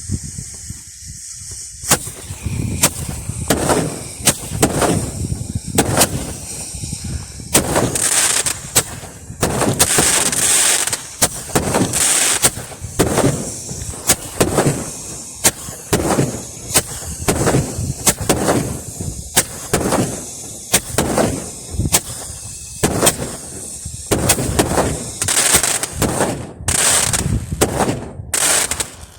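Multi-shot fireworks salute battery firing: a long run of sharp bangs, about one to two a second, starting about two seconds in, with longer crackling bursts about a third of the way through and again near the end.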